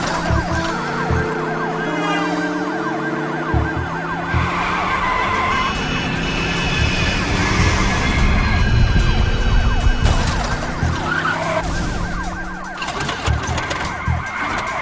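Police sirens wailing, several at once, over car noise and a music track.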